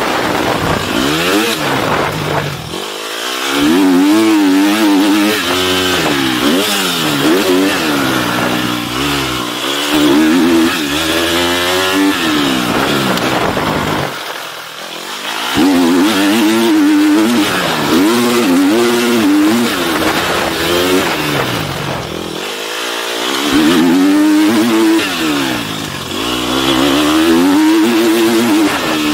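GasGas motocross bike's engine under hard riding on a dirt track, its pitch climbing and falling repeatedly as the throttle is worked through the gears and corners. The throttle is briefly shut off about three seconds in, again around the middle, and once more about three quarters of the way through.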